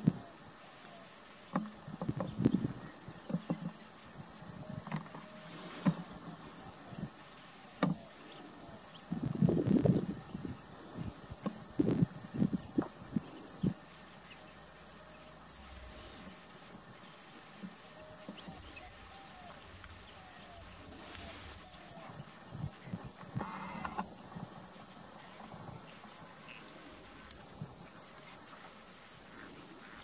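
A steady, high, evenly pulsing insect trill that carries on without a break, with a few short low rumbles around ten and thirteen seconds in.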